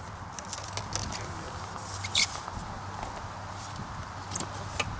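Scattered clicks and light knocks of fishing tackle being handled as the angler lifts his pole and brings out the landing net, the loudest a sharp clack about two seconds in.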